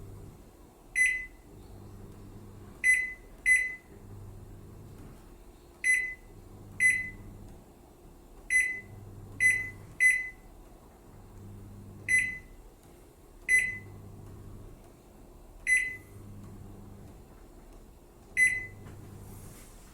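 Panasonic flat-table microwave oven's control panel beeping about a dozen times at uneven intervals, one short high beep per button press, over a faint low hum that pulses on and off.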